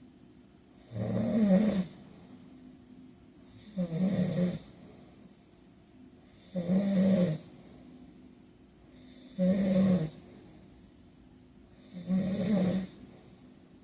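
A man snoring in his sleep: five loud snores, each under a second long with a low buzzing rattle, coming about every three seconds with quiet breathing gaps between them.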